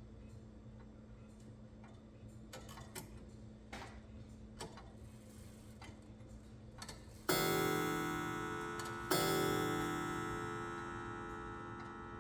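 Antique V. Jospischl Wien two-weight 30-day clock ticking faintly, then striking twice on its gong about two seconds apart, each stroke ringing on and slowly dying away.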